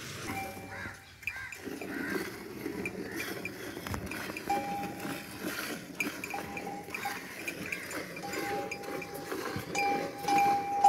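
Cowbells ringing among a herd of cattle in stretches that come and go, getting louder near the end. Underneath are the small repeated squirts of milk going into a steel pail during hand milking.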